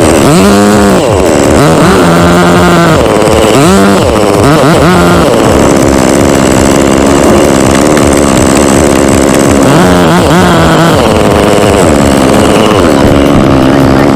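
Chainsaw engine revving, its pitch rising and falling again and again as the throttle is blipped and eased off.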